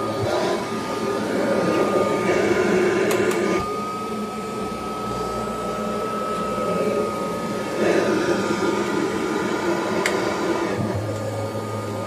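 Kirby Heritage II Legend upright vacuum running with a steady whine, getting louder twice as it is pushed along, with a few sharp clicks. It is running with a small object, a cigarette lighter's striker, caught in its motor fan.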